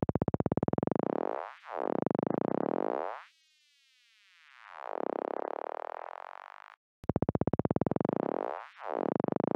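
Synthesized 'funkerpump'-style sound effect made with FL Studio's Sytrus synth: a rapidly pulsing buzz that pinches away and swells back, a faint falling whine, then a rising swell that cuts off suddenly. The phrase starts over about seven seconds in.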